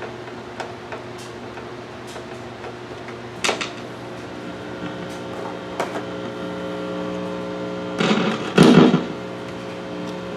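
Marshall guitar amp humming steadily, with small clicks, a short crackle about three and a half seconds in and loud crackling buzzes around eight to nine seconds in, typical of a guitar cable being plugged into a jack.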